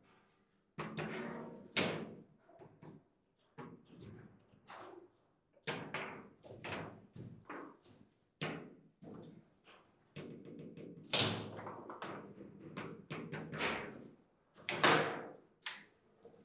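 Table football (foosball) table in play: irregular sharp clacks and bangs as the ball is struck by the players and hits the table's walls, and as the rods are worked, each knock ringing briefly through the table. The loudest bangs come about 11 and 15 seconds in.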